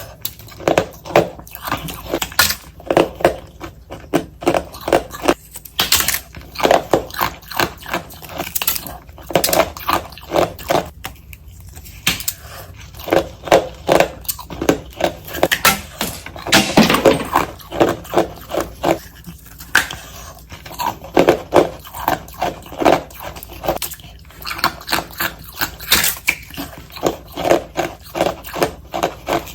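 A person biting and chewing ice, sped up: rapid runs of crunches several times a second, with a longer crushing crunch about halfway through.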